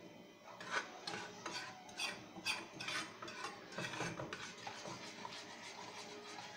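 A spoon stirring and scraping round a saucepan of thickening siopao sauce, about two scrapes a second, louder for the first few seconds and then softer.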